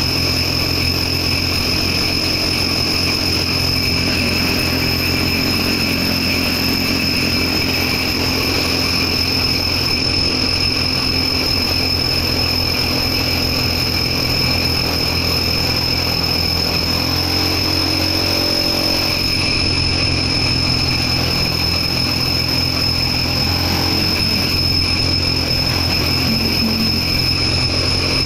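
Electric drill boring through a concrete floor, its motor running at a steady, unbroken whine with a low hum underneath. It stops suddenly at the very end, while the bit is still working through the concrete layer.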